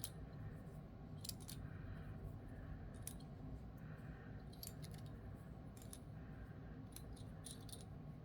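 Small sticks from a balance-beam stacking game clicking and tapping against each other as they are laid into a little log cabin, in scattered light clicks over a faint steady background hum.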